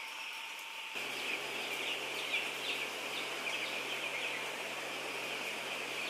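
Dense chorus of broiler chickens in a cage house, a steady high cheeping chatter with single calls standing out. About a second in, a low steady machine hum joins it.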